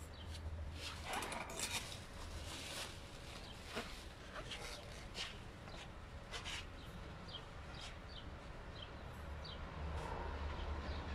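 Faint outdoor background: a low steady hum with scattered short high chirps throughout, and a few brief clicks and rustles in the first three seconds.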